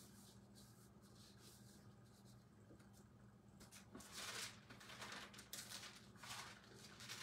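Near silence for the first few seconds, then the pages of a Bible being leafed through: a run of soft paper rustles.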